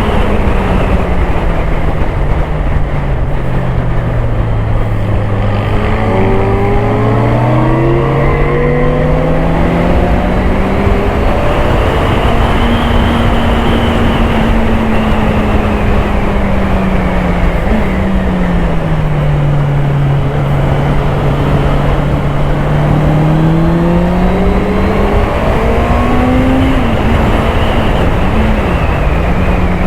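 Honda CBR650R's inline-four engine under way, over heavy wind rush. Its note drops over the first few seconds, climbs back and holds, dips again in the middle, then rises once more as the throttle is rolled on and off.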